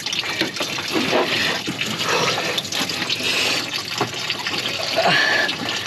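Engine coolant pouring and splashing steadily out of the truck's opened cooling system into a drain bucket, the stream partly missing the bucket.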